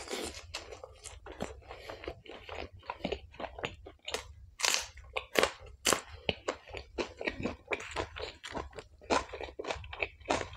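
Close-miked chewing of a mouthful of bhatura (fried bread) and chole, with irregular crunching bites throughout and a few louder crunches a little past the middle.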